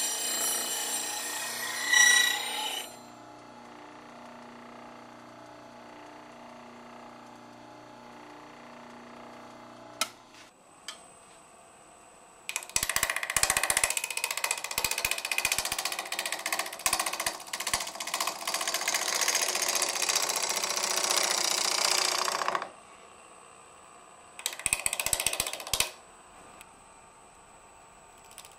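A bowl gouge held in a sharpening jig is ground on a bench grinder wheel, with a short squeal about two seconds in, then the grinder's motor hums on its own. From about twelve seconds in, the bowl gouge cuts a spinning elm crotch bowl blank on a wood lathe: a loud rushing of shavings with fast ticking for about ten seconds, as the interrupted natural-edge blank passes the tool, then a shorter cut near the end. Between the cuts there is a faint steady high whine.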